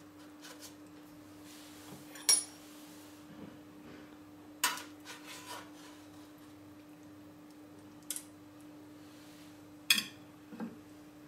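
Metal serving spatula and spoon clinking and scraping against a metal baking tray and a ceramic plate as a portion of food is lifted and served. There are about five sharp clinks a second or more apart, over a faint steady hum.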